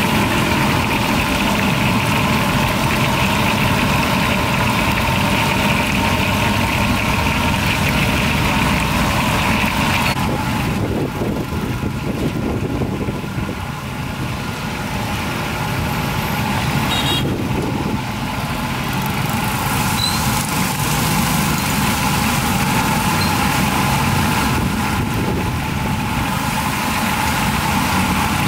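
Steady engine-like rumble with a constant hum, dipping briefly about halfway through.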